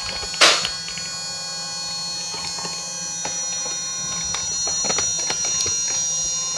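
Small electric motors whirring steadily with a high whine that sinks slowly in pitch, typical of a motorized Nerf blaster's flywheels spun up. A sharp snap comes about half a second in, with scattered small clicks throughout.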